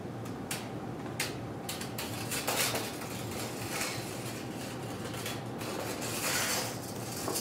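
A long steel bandsaw blade being twisted and folded into coils by hand: the thin band clicks and rattles, with a few sharp clicks and two longer scraping rattles, over a steady low hum.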